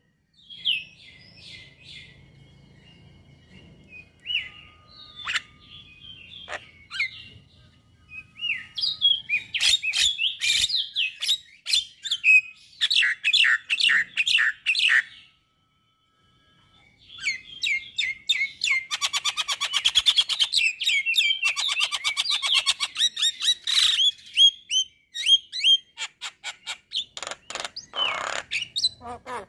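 Male Javan myna singing a varied string of whistles, chirps and fast clicking rattles. About halfway through it breaks off for a couple of seconds, then goes into a long run of rapid chatter.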